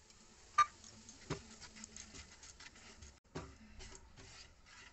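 Spatula scraping and stirring semolina roasting in ghee in a non-stick pan: an uneven rubbing scrape, with a sharp tap about half a second in and knocks against the pan about a second and a half and three and a half seconds in.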